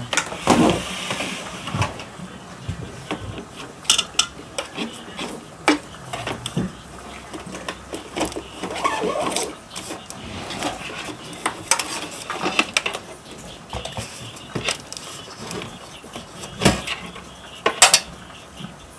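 Handling noise: irregular clicks, taps and knocks as an HDMI cable and its plugs are handled, a few sharper knocks standing out.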